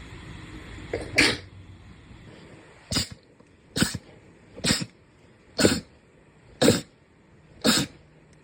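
A run of seven short, sharp sneezes in quick succession, the first about a second in and the rest coming roughly one a second.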